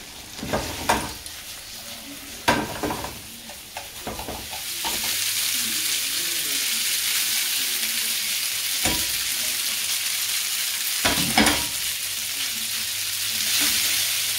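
Noodles sizzling as they fry in a pan for chow mein, with chopsticks and utensils knocking against the pan now and then. The first few seconds hold only a few clacks of utensils on cookware; the steady sizzle starts about five seconds in.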